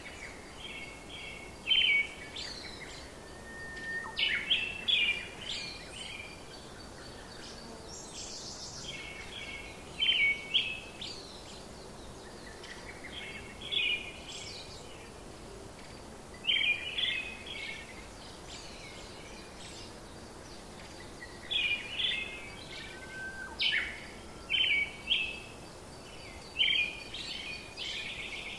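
Small birds chirping: short runs of quick, high chirps repeating every few seconds over a faint steady hiss.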